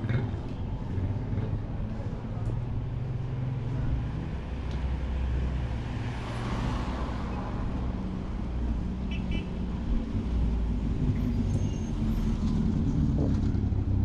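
Road traffic: engines running steadily, with a vehicle passing close by about halfway through.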